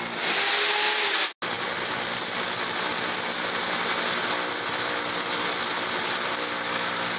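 Corded rotary hammer drilling a 16 mm hole up into a reinforced concrete ceiling slab, running steadily with a high whine. The sound cuts out for an instant about a second and a half in.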